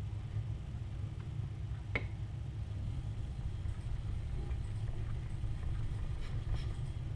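A steady low rumble, with a single sharp tick about two seconds in and faint scrapes and ticks of a kitchen knife being stroked across a whetstone.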